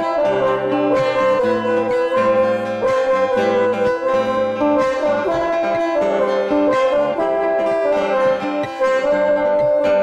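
Band music: an acoustic guitar strumming a steady rhythm under a brass melody of held and moving notes.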